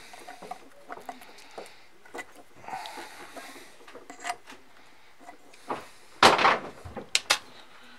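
Handling noise from a metal-cased automotive tachometer being gripped and turned over to open it: scattered light knocks and rubbing, with one louder half-second burst of scuffing about six seconds in, followed by a few sharp clicks.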